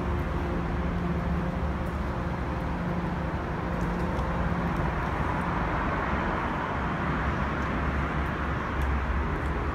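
Steady low rumble and hiss of background noise, with a few faint sustained hums and a brief swell in the middle.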